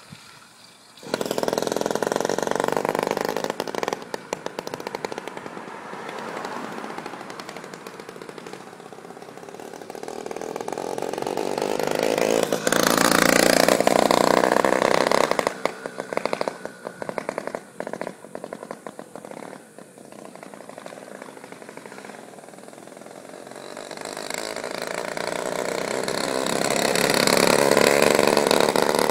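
Small engine of a motorized bamboo bicycle running, coming in suddenly about a second in. It grows louder and fades twice as the bike rides past, loudest about halfway through and again near the end.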